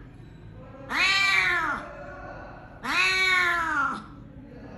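An injured cat meowing in distress twice, long drawn-out calls of about a second each that rise and then fall in pitch, while its maggot-infested wound is being cleaned.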